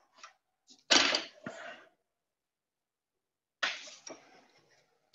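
Knocks and clatter of metal tooling being handled at a lathe's tailstock, where a drill chuck and bit are fitted: a loud knock about a second in, a smaller one just after, and two more a little before the end.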